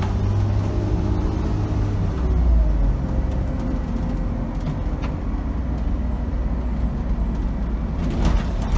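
Inside the cab of a 2006 Optare Solo M950 bus on the move: its 5.9-litre Cummins diesel engine runs with a steady low rumble under road noise, and the engine note falls in pitch over the first couple of seconds.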